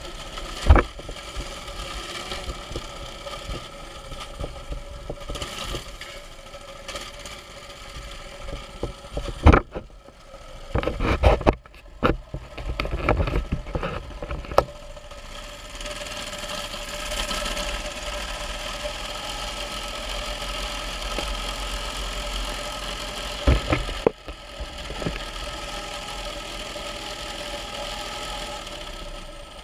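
Mini bike's small engine running steadily under a rider. Loud knocks and rattles break in near the start, in a cluster from about ten to fifteen seconds in, and once more near twenty-four seconds.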